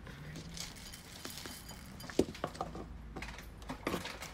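Light clinks and taps of kitchen containers being handled, scattered, with a few sharper ones in the second half.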